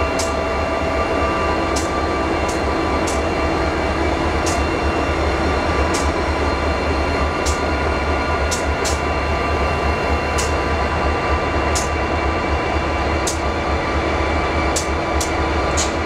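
Diesel-electric locomotive engines running steadily: the two V16 diesels of an EMD DDA40X, a loud, even drone with several held tones. Sharp ticks come through it about once a second, irregularly spaced.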